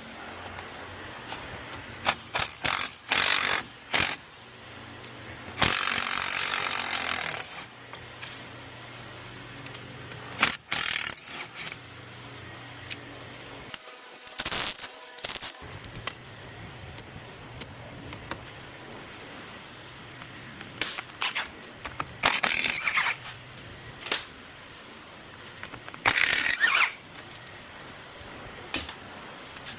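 Power tool run in short bursts of one to two seconds, several times over, during wheel bearing replacement on a Can-Am HD10 side-by-side, with a steady low hum underneath.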